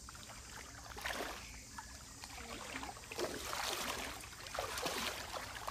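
Shallow stream water sloshing and splashing irregularly around legs wading through it, busier in the second half.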